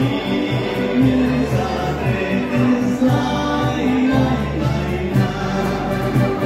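A young folk ensemble playing a tune together, with flutes and guitars over a repeating bass line, and voices singing along into microphones.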